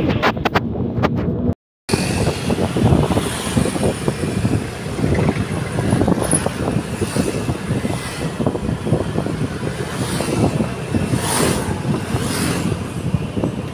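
Wind rush and buffeting on the microphone of a moving motorcycle, with its engine and road noise underneath. The sound cuts out completely for a moment about two seconds in.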